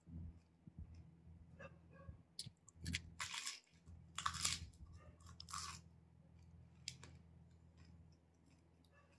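A person chewing and crunching fuchka (pani puri), the crisp fried puri shells breaking in the mouth. There are a few louder crunches in the middle, over a steady low hum.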